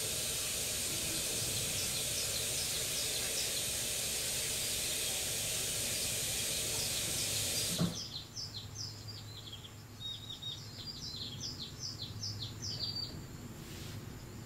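Small birds chirping in quick repeated notes over a steady hiss. About eight seconds in the hiss cuts off abruptly with a click, and the chirping carries on, clearer, over a low hum.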